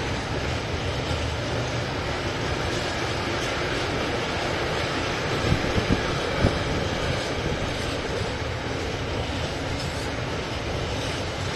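Freight train of empty container flat wagons rolling past: a steady rumble of wheels on rail. A few sharp knocks come about halfway through.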